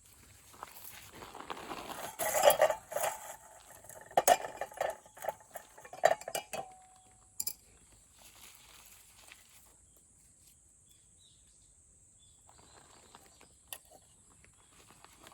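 Metal cookware and utensils clinking and rattling: a run of sharp clinks with short ringing tones for about five seconds, the loudest near the start, then faint handling sounds.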